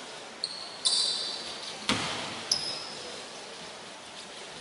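Sneakers squeaking on a hardwood basketball court in short, high chirps, three times in the first two and a half seconds, with one sharp ball bounce about two seconds in.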